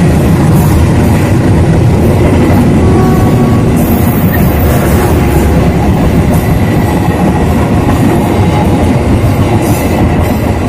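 Passenger train coaches rolling past close by: a loud, steady rumble of steel wheels on the rails, with the clack of the wheels over rail joints.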